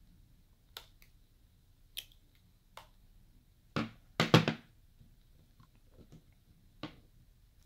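Smartphones being handled and set down on a marble tabletop: a scatter of short clicks and knocks, the loudest a pair of knocks a little past four seconds in.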